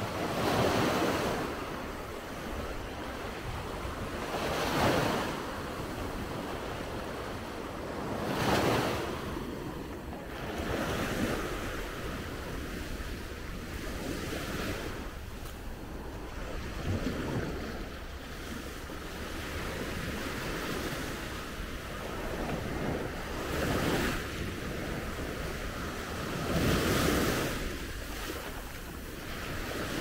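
Sea waves breaking on the shore, a wash of surf swelling and fading every few seconds, with wind buffeting the microphone.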